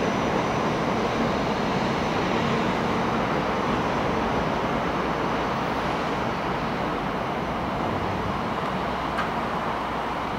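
700 series Shinkansen running into a station to stop: a steady rushing rumble of wheels on rail, slowly getting quieter as the train slows.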